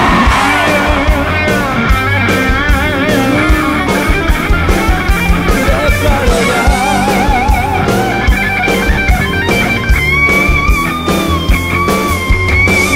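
Rock band playing an instrumental passage: a lead electric guitar with wavering vibrato notes over bass and a steady drum beat. The music stops abruptly near the end.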